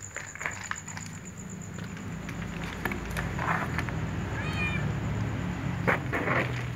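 A domestic cat meows once, briefly, about four and a half seconds in. Scattered short clicks and rustles from cats eating at their dishes surround it, over a low steady hum.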